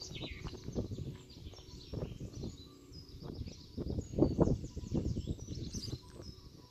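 Birds chirping and singing, with irregular low rumbles underneath that are loudest a little past four seconds in.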